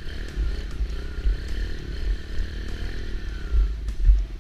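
Kawasaki KLX110 dirt bike's small single-cylinder four-stroke engine revving unevenly as the bike spins a donut in snow, the engine note sagging near the end.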